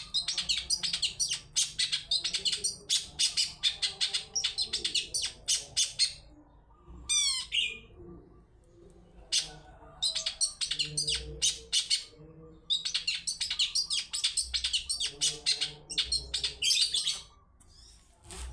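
Long-tailed shrike singing rapid runs of sharp, chattering high notes in several long bursts with short pauses between them. About seven seconds in comes a quick descending trill.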